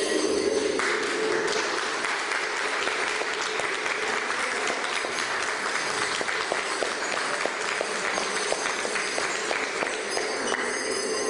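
Audience applauding, starting about a second in and stopping shortly before the end. Lion-dance percussion music is briefly heard at the start and comes back near the end.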